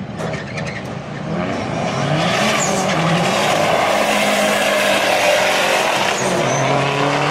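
Two drag cars, a Dodge SRT-4 Neon and a Chevy SS, accelerating hard down a quarter-mile strip side by side. About a second in, the engine noise builds to a loud, sustained wash. Engine pitch climbs and steps down through several upshifts.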